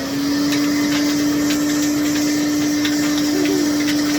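Ridgid wet/dry shop vac running steadily, its motor settling to a constant pitch just after being switched on, with faint scattered ticks; the owner puts the noise down to something he has already sucked up into it.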